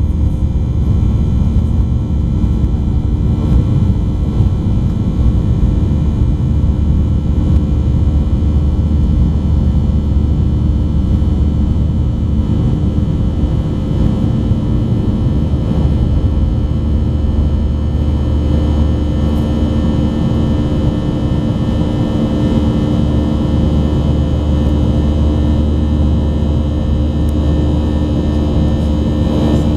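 Cabin noise of a Boeing 737-800 climbing after takeoff, heard from a seat by the wing. The CFM56-7B turbofans run steadily at climb power: a loud, deep rumble with steady whining tones above it.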